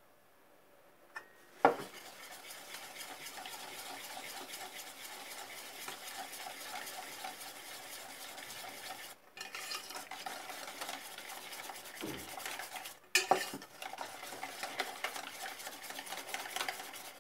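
Wire whisk beating a pale liquid mixture in a stainless steel bowl: a steady, rapid clatter of wires against the metal. There is a sharp knock just before it starts, and a few more knocks after a short pause past the middle.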